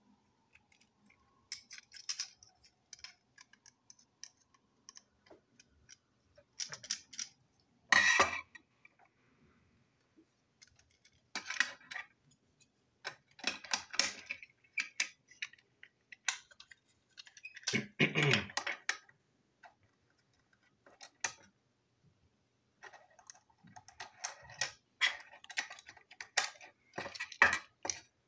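Small plastic parts of a toy train engine being handled with a small screwdriver: irregular clicks, taps and light clatters, with a few louder knocks as the pieces are turned over and fitted.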